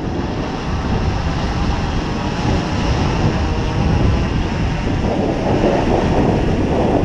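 Wind buffeting the microphone: a steady low rumble without any clear tone, growing a little louder and fuller about five seconds in.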